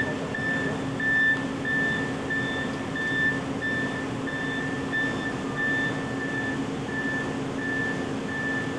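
Electronic warning beeper on the pallet-handling system of an Amada combination CNC punch and laser, sounding a short high beep about three times every two seconds over a steady machine hum. The beeping stops near the end.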